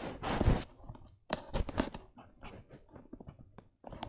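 Irregular clicks, taps and short rustles, with a louder rustling burst at the start and a brief pause near the end.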